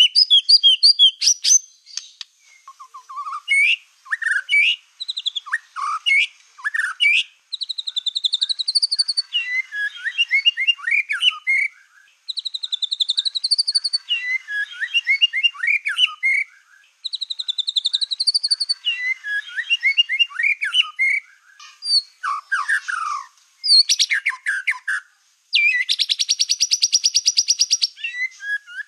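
Black-tailed white-rumped shama (murai batu ekor hitam) in full, continuous song. It gives varied quick phrases of chirps and slurred whistles, with a wavering whistled phrase three times and a long, very fast, buzzing trill near the end.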